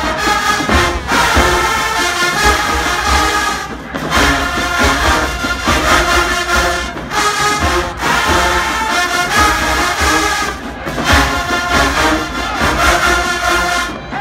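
Collegiate show-style marching band playing: massed brass over heavy drums and a pulsing low bass line, in loud phrases with brief breaks between them.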